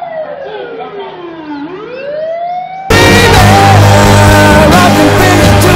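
A dog howls in one long call that falls steadily in pitch and then swings back up. About three seconds in, a loud song with singing cuts in suddenly and drowns it out.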